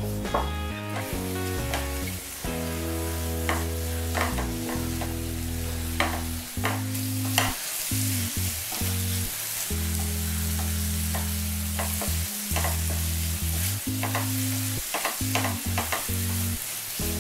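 A wooden spatula stirs and scrapes mushrooms in a thick tandoori sauce around a frying pan, with repeated short scrapes and taps against the pan. The food sizzles underneath, and the sizzle grows brighter about seven seconds in.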